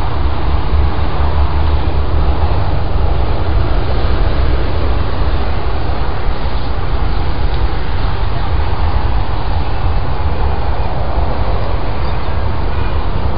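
Steady low rumble with an even hiss over it, unbroken and without distinct events.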